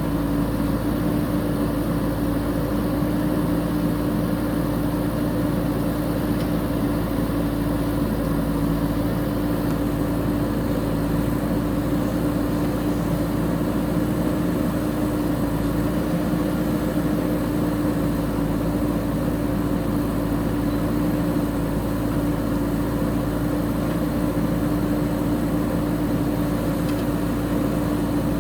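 JCB 3DX backhoe loader's diesel engine running at a steady speed, with a strong even hum that holds without revving or breaks.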